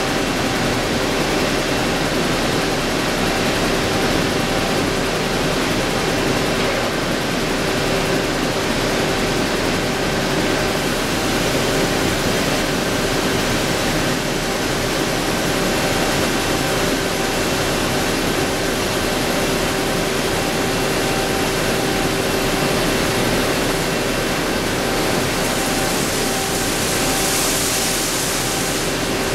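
Honor Seiki VL-66A vertical CNC lathe turning a brake drum: a steady machining noise with a constant whine of several held tones. A brighter hiss swells up for a few seconds near the end.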